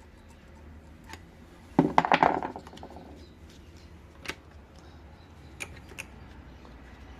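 Metal tools and brake parts being handled: a loud metallic clatter a little under two seconds in, then a few single clicks and taps.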